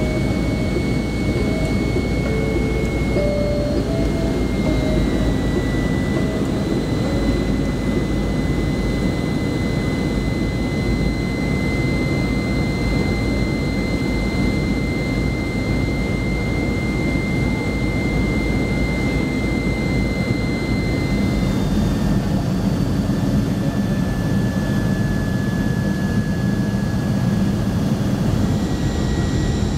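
Boeing 737-300's CFM56-3 turbofan engines heard from inside the cabin during the descent: a steady rush with a thin high whine that steps slightly lower in pitch twice.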